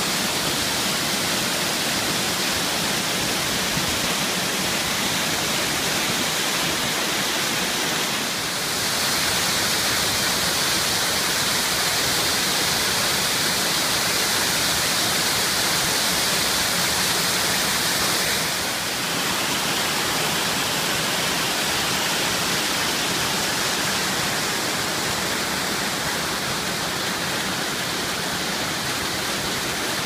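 Mountain-stream waterfalls spilling over rock ledges and boulders into pools: a steady rush of falling water. It shifts slightly in tone twice, about a third and two thirds of the way through.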